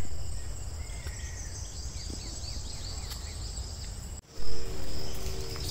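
Crickets trilling steadily in a high, unbroken band, with short falling chirps over it and a strong low rumble underneath. The sound cuts off sharply about four seconds in and starts again at once, the crickets continuing.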